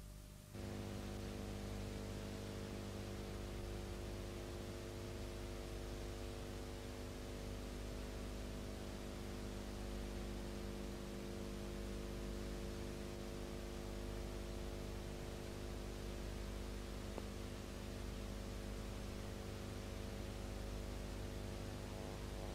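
Steady electrical hum with hiss, a low drone of several fixed tones that cuts in abruptly about half a second in.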